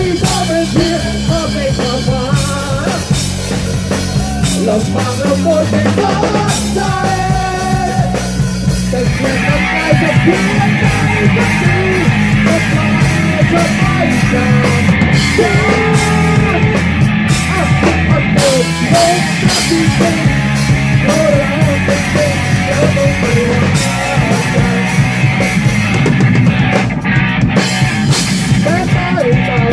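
Live rock band playing loud: drum kit and electric guitar with a singer over them. The band gets fuller and a little louder about nine seconds in.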